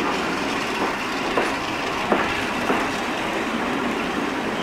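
Passenger coach wheels rolling over jointed track, with a steady rumble and a clack roughly every two-thirds of a second as the train runs slowly. It is heard from an open window of the moving coach.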